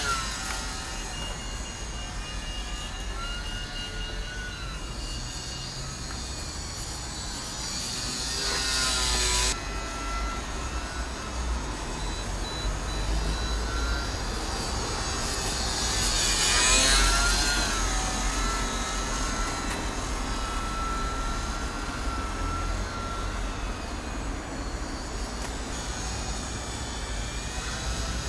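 E-flite Sbach 342 radio-controlled model plane's motor and propeller whining in flight. The pitch rises and falls with throttle and with each pass, and the plane is loudest on close passes about 9 and 17 seconds in.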